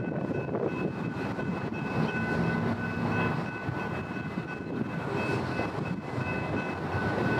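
Herzog freight cars of a passing train rolling over a grade crossing: a continuous rumble and clatter of wheels on rail, with a steady high tone held over it throughout.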